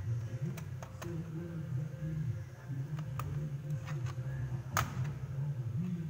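Scattered light clicks and taps as hands handle the plastic underside and open component bay of a laptop, the sharpest about five seconds in, over a low steady background hum.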